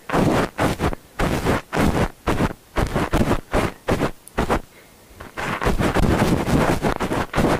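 Cotton rubbed and scrunched directly on a Zoom handheld recorder's X/Y microphone capsules, giving loud, scratchy rustling strokes about two to three a second that run together more continuously in the second half. This mimics the sound of ear cleaning close to the ear.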